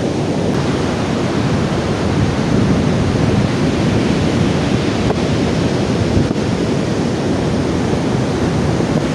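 Strong wind buffeting the microphone over the steady rush of surf, a dense, unbroken noise heaviest in the low end.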